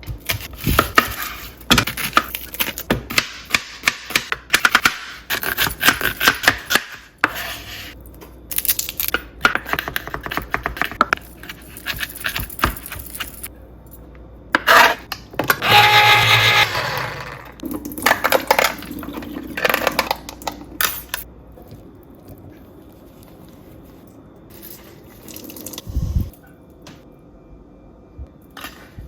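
Kitchen food-prep noises: rapid clicking and clattering of utensils and containers with some scraping, a louder burst of noise lasting about two seconds partway through, and quieter handling near the end.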